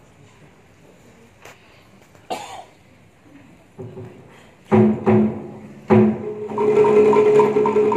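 A traditional Vietnamese water-puppet theatre ensemble begins playing: three loud struck notes with ringing tones about halfway through, then the music sets in with a quick, regular tapping beat over held tones. Before that, the hushed audience gives a cough and a few small noises.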